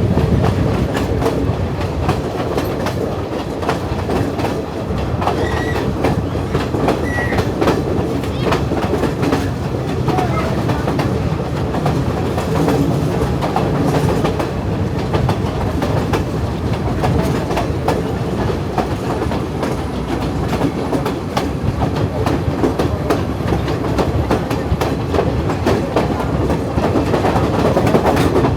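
Passenger train running along the line, heard from on board: a steady rumble with wheels clicking over the rail joints.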